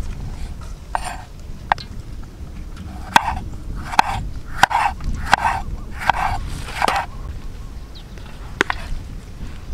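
Knife slicing through firm green and ripe tomatoes on a wooden cutting board: about nine cuts at an uneven pace, roughly one a second, each a short crunch ending in a sharp tap of the blade on the board, over a low steady rumble.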